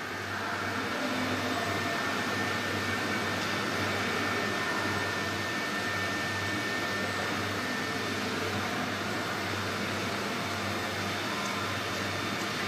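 MS3020K12 desktop CNC engraving router's stepper motors jogging the gantry along the X axis at fast jog speed: a steady mechanical whine and hum that starts at once and holds even.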